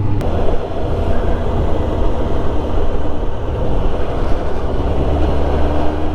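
Suzuki GSX-R 750's inline-four engine running steadily on the move, under an even rush of wind noise.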